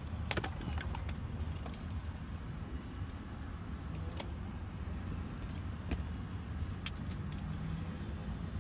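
Light clicks and rattles of wires and a hand tool being handled, scattered irregularly over a steady low rumble.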